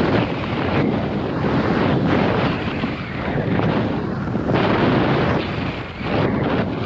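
Wind buffeting the microphone of a skier's body-worn camera while skiing downhill into a strong headwind: a loud, uneven rushing that swells and dips every second or so.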